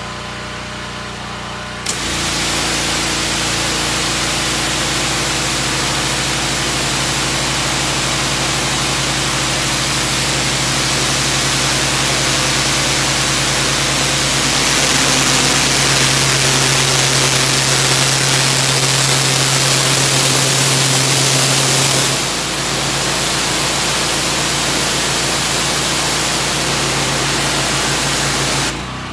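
Pressure washer with a turbo (rotary) nozzle firing: a loud, steady hiss of high-pressure water over the machine's steady hum under load. The spray starts suddenly about two seconds in, is louder for several seconds in the middle, and cuts off near the end.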